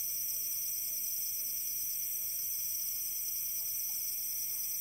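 Steady, high-pitched chorus of night insects such as crickets, with no other sound.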